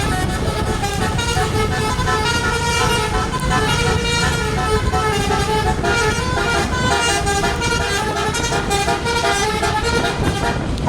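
Tour bus's telolet basuri multi-tone air horn played on and on, its tones stepping from note to note in a melody, with the bus's engine rumbling underneath.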